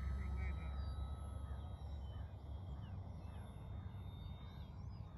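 Thin, distant whine of a small RC airplane's E-flite Park 370 electric motor, one tone of it dying away about a second and a half in. Birds chirp and call throughout over a low rumble.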